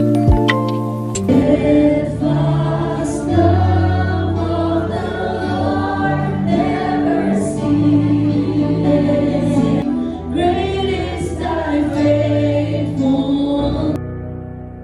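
Background music with a choir singing over held chords. It enters about a second in after a few sharp struck notes and drops to softer held notes near the end.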